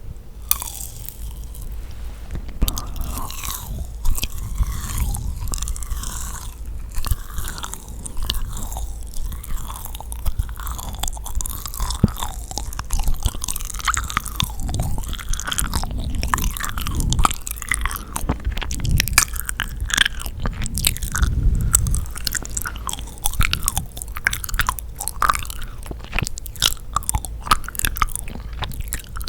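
Close-miked chewing and biting of yakgwa, a sticky honey-soaked Korean fried cookie: a continuous run of wet, sticky mouth clicks with small crunches.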